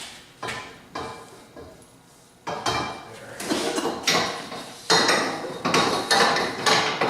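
Steel roll-cage tubing clanking and knocking as bars are handled and fitted: two separate knocks, then from about two and a half seconds in a busy run of ringing metal clanks.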